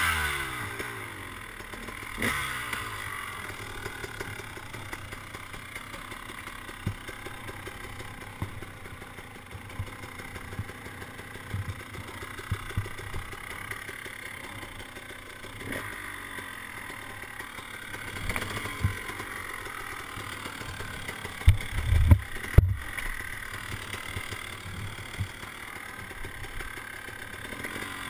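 KTM 300 two-stroke dirt bike engine running at low throttle just after being restarted, its revs settling in the first couple of seconds, with a few short blips of throttle. A few heavy thumps come about three-quarters of the way through.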